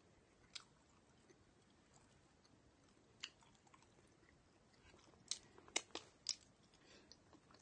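Faint close-up eating sounds from a pork floss bun: soft chewing with scattered sharp mouth clicks and crackles, a few single ones early and a cluster of louder ones a little past halfway.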